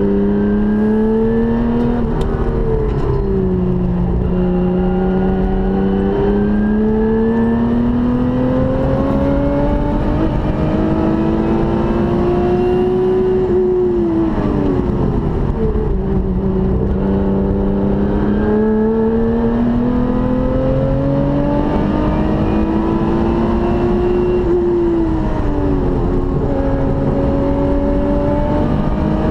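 Race-prepared car's engine heard from inside the cabin, driven hard around a circuit. The revs climb steadily for several seconds at a time and fall away sharply about fourteen and twenty-five seconds in, with a shorter dip about two seconds in, before climbing again.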